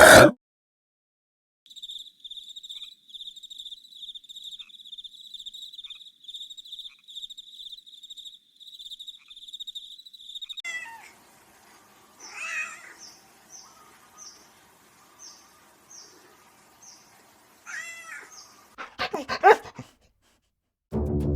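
A cat meowing a few times, with rising-and-falling calls and a louder one near the end. Before it there is a high, rapidly pulsing insect-like trill, followed by a string of short high chirps.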